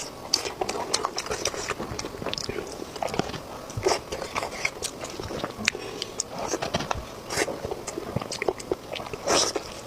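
Close-miked mouth sounds of a person biting and chewing food: irregular wet smacks and clicks several times a second.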